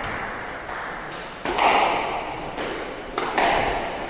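Squash ball being struck by rackets and hitting the court walls: a string of sharp knocks with a short ringing echo off the court walls. The loudest cracks come about a second and a half in and again near the end.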